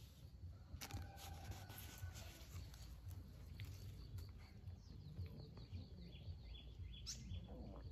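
Faint birds chirping: a quick run of short high chirps in the second half and one upward-sliding call near the end, over a low steady rumble.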